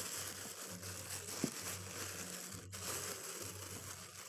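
Clear plastic bag crinkling and rustling as hands pull it off a welding machine, with a short click about a second and a half in.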